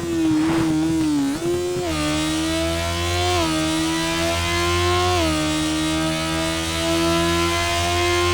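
Sport motorcycle engine running hard at high revs with a steady note that drops in pitch a few times and then holds.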